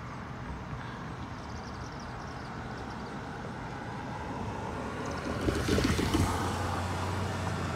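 A car driving past close by: its tyre and engine noise swells over steady background traffic noise and peaks about six seconds in, leaving a low steady hum.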